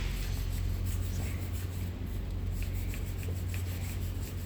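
Rust being scraped off metal brake parts of a semi-truck: short, irregular rasping strokes over a steady low hum.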